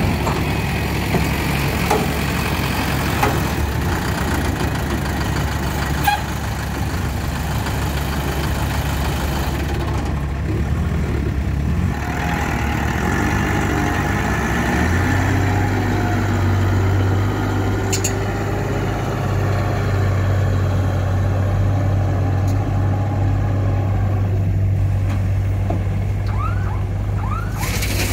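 Diesel engines of small loaded Hoa Mai dump trucks running at low speed as they drive past on a dirt track. About halfway through the engine note rises and falls in pitch, then settles into a stronger, steady low drone.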